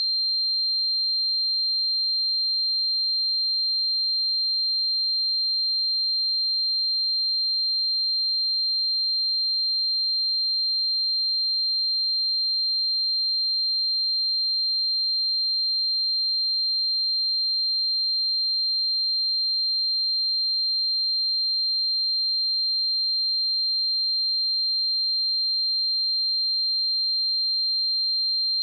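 A pure 4168 Hz sine-wave test tone, a single high-pitched steady whistle held at constant pitch and level, used to check speakers or headphones.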